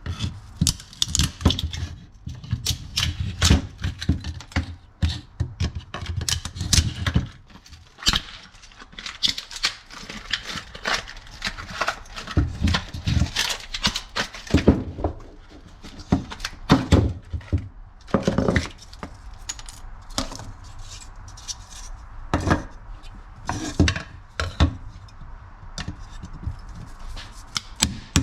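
Irregular clicks, knocks and rattles of hand tools and hard plastic and metal parts being worked, in uneven bursts, as the old factory door speaker of a Toyota Tundra is broken out.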